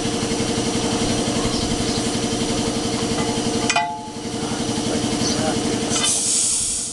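An engine runs steadily with a fast, even pulse. About four seconds in there is a single metal clank as the flywheel of a 1927 Atlas three-cylinder diesel is barred over, and near the end comes a hiss of compressed air.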